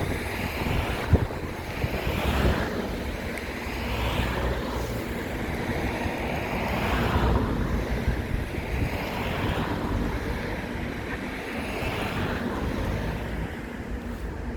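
Wind noise on the microphone with a low rumble, swelling and easing every couple of seconds.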